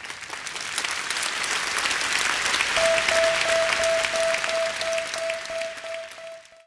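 Concert audience applauding after a song ends, the clapping swelling and then fading out. About three seconds in, a single steady, slightly pulsing tone joins the applause.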